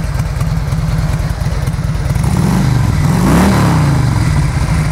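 Carbureted Harley-Davidson Twin Cam 88 V-twin idling with a slight lope through aftermarket fishtail mufflers. About halfway through the throttle is blipped once: the revs rise and drop back to idle.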